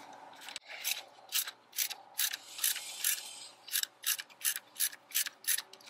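Ratchet wrench clicking in a steady run of sharp single clicks, about two to three a second, as it is swung back and forth on the bolt that holds the motorcycle's gear shifter on.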